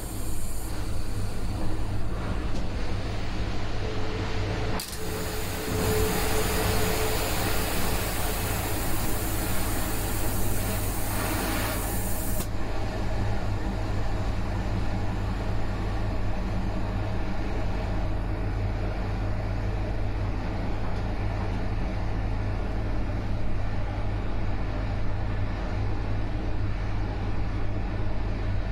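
Steady running noise of a train hauled by a MÁV V63 electric locomotive, with a low steady hum. About five seconds in a loud rushing hiss sets in, lasts about seven seconds and cuts off suddenly.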